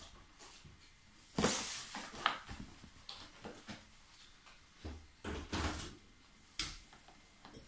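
Cardboard cereal box scraping and crinkling against a tiled floor as an Egyptian Mau kitten wriggles inside it, in several short bursts, the loudest about a second and a half in.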